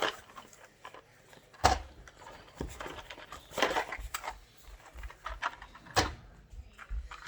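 Boxes of ammunition being handled and set down: a few scattered knocks with short rustles between them, the loudest knock a little under two seconds in and another about six seconds in.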